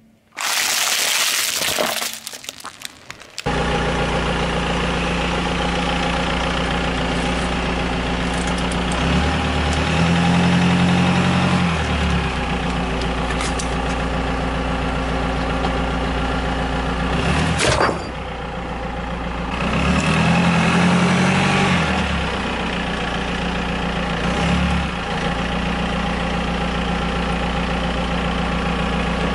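BMW car engine idling steadily, its low note shifting a few times. A short burst of loud noise comes in the first two seconds, before the engine sound sets in, and there is one sharp click midway.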